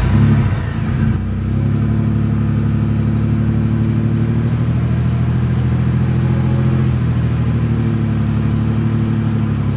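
A vehicle engine running at a steady, even speed; it settles about a second and a half in after a brief burst of noise.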